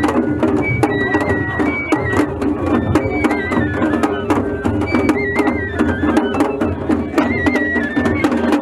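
Japanese festival music (matsuri bayashi) from a festival float: taiko drums struck in a quick steady rhythm under a high, trilling bamboo flute melody.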